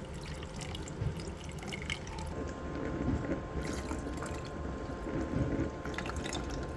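Water being poured into a baby bottle warmer around the bottle, with irregular trickling and dripping. A faint steady tone joins a little over two seconds in.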